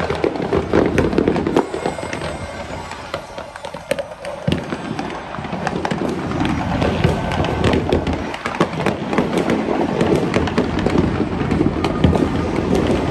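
New Year fireworks and firecrackers going off without pause: a dense crackle of many sharp cracks over a continuous low rumble, thinning briefly about three seconds in, then building again.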